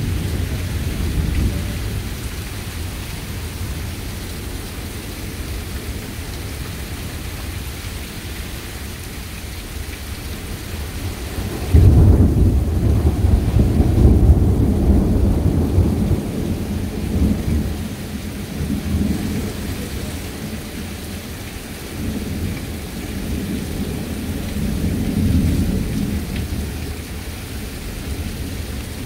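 Heavy rain falling steadily in a thunderstorm. About twelve seconds in, a loud thunderclap breaks in and rumbles for several seconds, followed by weaker rolls of thunder later on.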